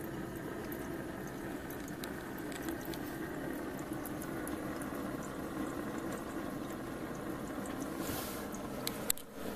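Small propane-fired Stirling engine running steadily, with the soft rush of its burner and the onboard water pump circulating cooling water, with scattered faint ticks. A sharp click and a brief drop in level about nine seconds in.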